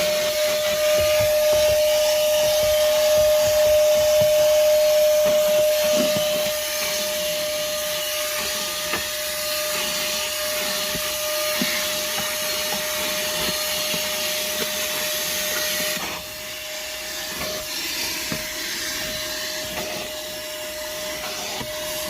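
Moosoo 18 V cordless shop vacuum running: a steady motor whine over rushing air. It gets quieter about six seconds in and drops again about sixteen seconds in.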